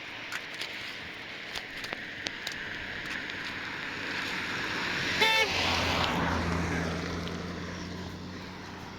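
A motor vehicle passing, its engine and road noise swelling to a peak about five seconds in and then fading, with a brief horn toot at the peak.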